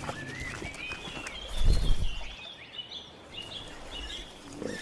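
Birds calling with a run of short, repeated chirping notes, and a brief low thud about one and a half seconds in.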